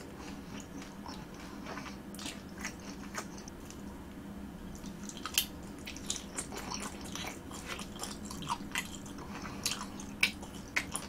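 Close-miked chewing of crispy fried skewer food, with irregular small crunches and mouth clicks through the mouthful.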